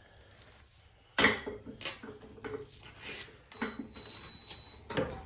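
Metallic clinks and knocks from handling parts and tools on a push mower, with a sharp knock about a second in and scattered lighter clatter after it.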